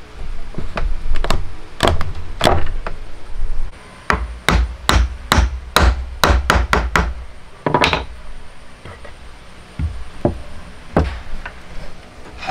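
Sharp wooden knocks as the hand-cut pieces of a Japanese interlocking wood joint are struck to seat them together: an uneven run of strikes, quickest around the middle and thinning out near the end.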